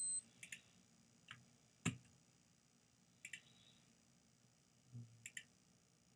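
Computer mouse clicking: scattered single clicks and two quick double-clicks, on a quiet background. A short, high electronic beep cuts off just at the start.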